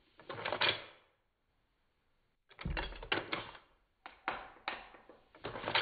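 Lever action of an Umarex Winchester underlever air rifle being worked by hand: metallic clicking and clacking in four separate bursts as the lever is opened and closed.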